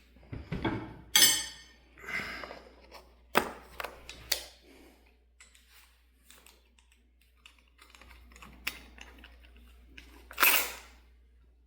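Handling noise of small tools and parts at a workbench: a series of sharp clicks and knocks with short rustles, busiest in the first few seconds. There is one brief scraping rustle near the end.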